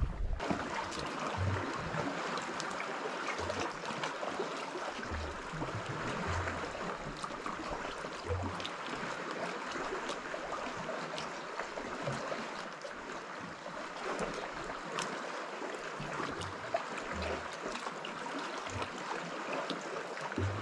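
Small sea waves lapping and trickling among shore rocks: a steady wash of water with faint scattered ticks and splashes.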